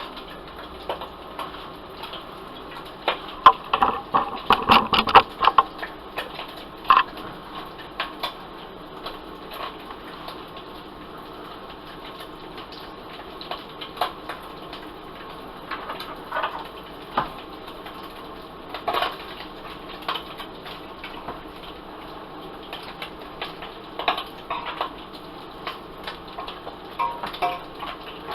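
Food frying in hot oil in a pan: a steady sizzle with many scattered pops, a thick run of louder pops about four seconds in.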